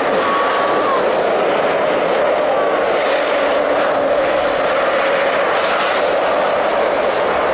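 Ice-racing cars running hard through a snow-covered corner, a steady drone of the cars with a haze of wind and snow noise, and a short higher whine in the first second.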